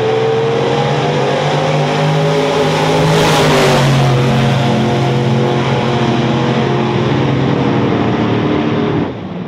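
Bigfoot and a second monster truck launching side by side down a drag strip at full throttle. The engines' pitch climbs over the first few seconds and the sound is loudest about three to four seconds in as they pass, then holds as they run away down the track, dropping off near the end.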